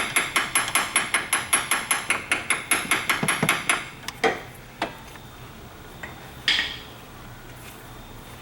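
Hammer tapping rapidly on a stuck engine part to work it loose, about five ringing metallic strikes a second. The tapping stops about four seconds in, followed by a couple of single knocks and a ringing metallic clink.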